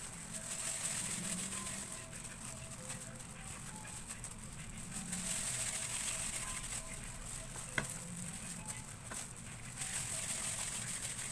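Thin plastic food-handling gloves crinkling and rustling as hands scoop and squeeze a crumbly graham-cracker mixture into balls, a steady crackle, with one sharp click near the end. Faint music lies underneath.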